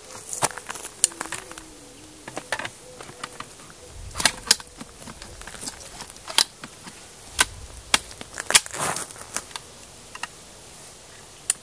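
Metallic clicks and clacks of a PKM machine gun's barrel being fitted back into the receiver and locked in place during reassembly: many sharp, irregular clicks, with heavier clunks about four and eight seconds in.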